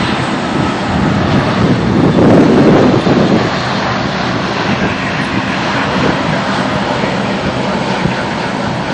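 Jet engines of a Boeing 787 airliner running: a loud, steady rushing noise that swells around two seconds in, then settles.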